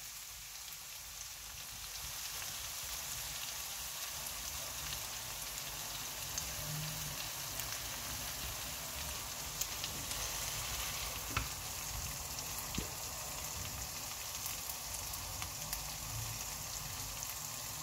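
Chicken pieces frying in oil in a karahi: a steady, high sizzling hiss, with a few brief sharp clicks scattered through.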